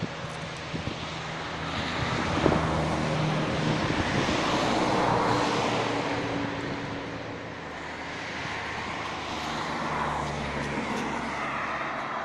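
Engine noise of passing motor traffic: a broad rush with a low hum that swells about two seconds in, fades, and rises again near the end.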